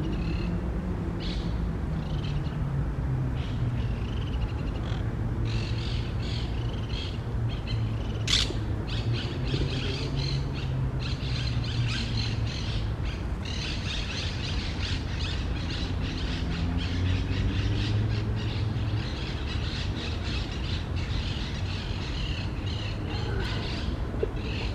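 Many short, high chirps and clicks coming from the tree, thickest in the middle stretch, over a low, slowly wavering hum.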